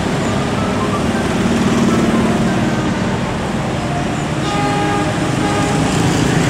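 Dense street traffic of motorcycles and cars passing close by, a steady loud roar mixed with the engine of a CC201 diesel locomotive moving along the street-running track behind them. Short horn tones sound about four and a half seconds in.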